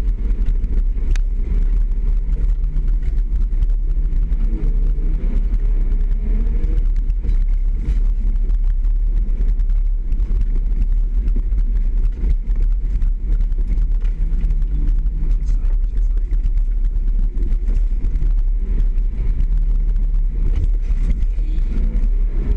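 Nissan Patrol 4WD driving over a rough dirt track, heard from inside the cabin as a steady deep rumble of engine and running gear.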